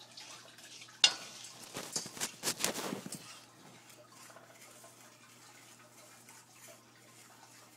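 A utensil stirring and scraping a sugar and baking-soda mix in a saucepan: a sharp knock against the pan about a second in, then a quick run of scrapes and clatter for about a second and a half, after which it goes quiet.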